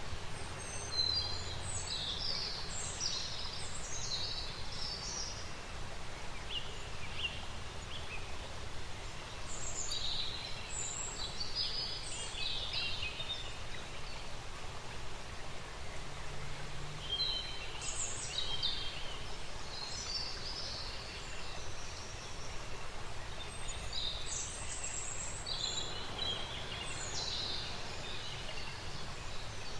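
Outdoor nature ambience: small birds chirping and twittering in clusters every few seconds over a steady background hiss.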